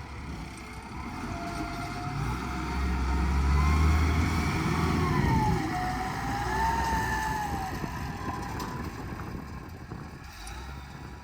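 A heavy machine's engine revs up and eases back off, with a whine that rises and falls in pitch along with it.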